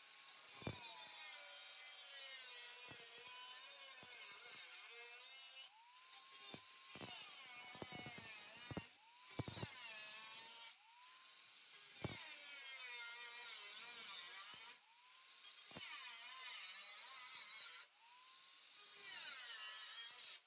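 Small high-speed power cutting tool slicing through sheet steel in repeated short runs. Each run spins up to a steady whine that wavers in pitch as the wheel bites the metal, with sharp clicks between runs.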